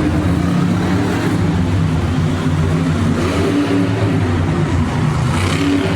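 Monster truck engine running loudly, a deep steady drone.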